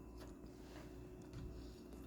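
Faint chewing: a few soft mouth clicks over a low steady hum.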